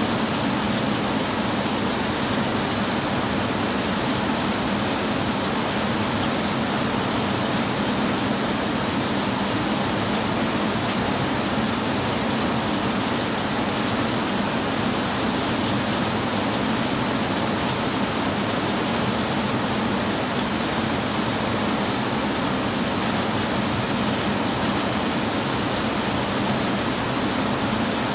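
Heavy rain on a tin roof, a steady, even hiss that does not change.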